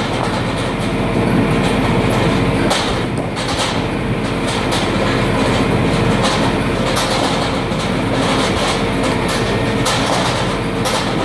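Firewood cleaner's rotating steel-bar drum running, with split logs tumbling and clattering against the bars: a continuous rumble broken by irregular knocks, over a steady hum.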